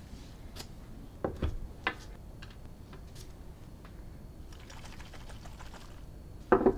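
Gloved hands handling small objects on a desk mat. A few light knocks and clicks come between one and two seconds in, then a soft rustle. Near the end there is a louder knock as a small glass paint bottle is set down.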